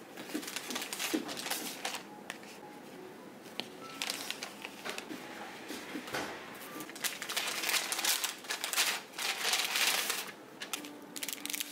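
Paper and plastic packaging rustling and crinkling in hands as a purchase is packed into a kraft paper envelope, in uneven bursts, the longest stretch near the end.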